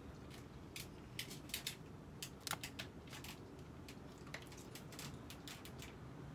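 A scatter of light, sharp clicks and ticks, about fifteen, from dogs shifting about inside a wire crate, over a faint low room hum.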